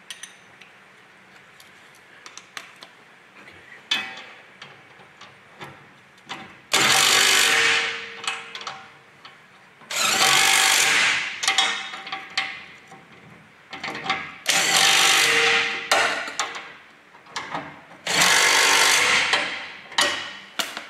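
Cordless impact wrench running nuts onto the bolts that fix a truck's spring hanger box to the chassis rail, in four long bursts of a couple of seconds each with shorter blips between. Before the first burst, a few seconds of light metal clinks from the bolts and a ring spanner.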